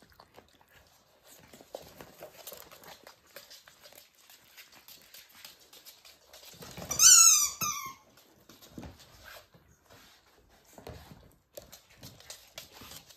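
Pembroke Welsh Corgi puppy giving a quick run of high yelps, each falling in pitch, about seven seconds in. Faint scattered clicks and scuffling come before and after.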